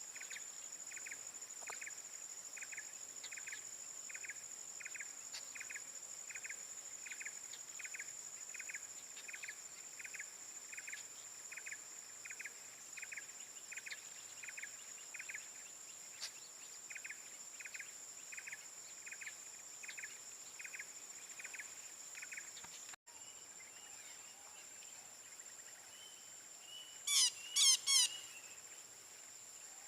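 Insects droning at a steady high pitch, with a short call repeated about one and a half times a second. After a sudden cut, three loud harsh parakeet squawks come near the end.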